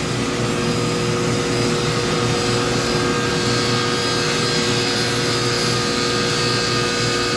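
Electric power saw running steadily with a constant whine while cutting MDF panels for speaker-box port ducts; the hiss grows a little about three seconds in.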